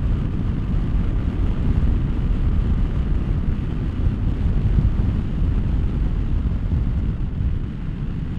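A 2023 Honda SCL500 motorcycle riding steadily at road speed: wind rush on the microphone over the running engine and tyres.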